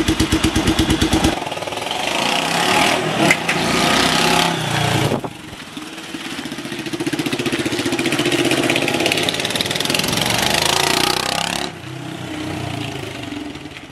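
Suzuki 250TR's single-cylinder engine through a Bison vintage-style muffler: idling with an even pulsing beat, then, after a cut about a second in, revving and riding away, its pitch rising and falling several times, and quieter near the end as it moves off.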